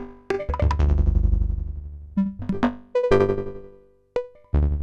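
Make Noise Eurorack modular synthesizer patch playing pitched, plucked-sounding notes that start sharply and die away over a second or two, several overlapping, with new notes entering at uneven intervals. The sound dips almost to silence about four seconds in, where a short click sounds, before a loud note returns.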